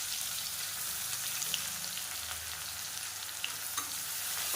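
Sliced onions frying and sizzling in hot oil and ghee in a pressure cooker, a steady hiss with a few light clicks.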